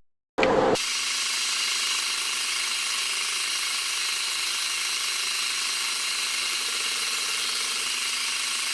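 A metalworking machine running steadily with an even, high-pitched machining noise. It starts with a brief louder burst about half a second in.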